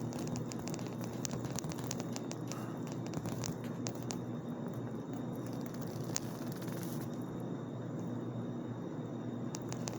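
Steady low hum with scattered sharp clicks and crackles, thickest in the first four seconds and only a few later.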